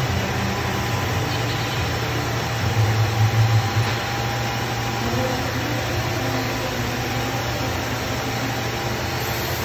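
Steady low machinery hum of a running juice processing and aseptic filling line (pumps and motors), swelling louder for about a second around three seconds in.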